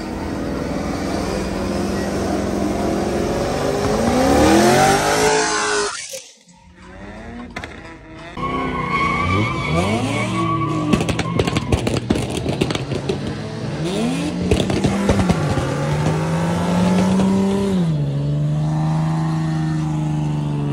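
Cars doing burnouts: engines held at high revs, climbing and dropping again and again, with tyre squeal. The sound cuts out briefly about six seconds in, then a second car revs up and down with a spatter of sharp pops and crackles, settling near the end into a steady high rev.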